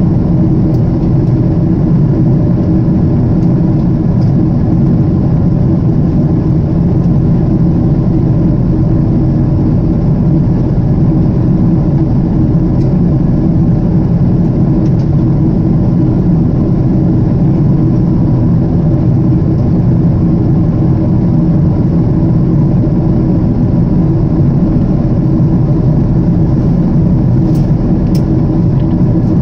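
Cabin noise inside a Japan Airlines Boeing 777-300 airliner in flight: a steady, loud, low drone of the jet engines and rushing air, with a faint steady hum on top, unchanging throughout.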